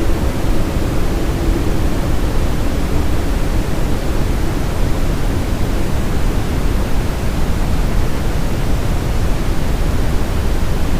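Steady brown noise: an even, deep hiss weighted to the low end, with no breaks or strokes.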